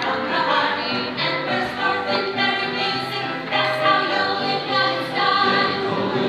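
Recorded show music with a group of voices singing, playing steadily throughout the puppet performance.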